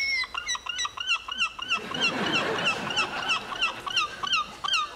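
A quiz-show buzzer sound effect made from an animal call: a rapid run of short calls, each rising and falling in pitch, about three or four a second.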